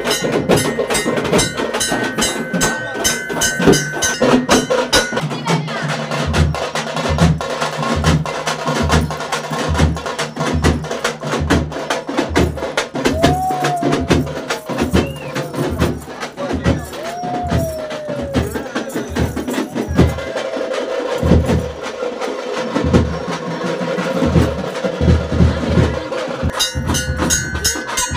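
Festival drums playing a steady beat of roughly two low strokes a second, with quick sharp strokes over it; the beat pauses briefly about two-thirds of the way through.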